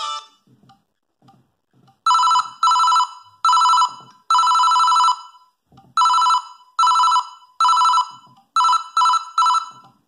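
Panasonic G51 mobile phone playing a telephone-style ringtone through its small speaker: a two-tone electronic trill, like an old telephone bell, in repeated short rings of varying length with a brief pause about halfway. A few faint clicks come just before the ringing starts.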